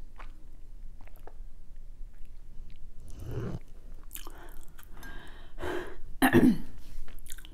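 Close-miked chewing of food, with small wet mouth clicks, then louder chewing and mouth sounds from about halfway through, loudest about six seconds in.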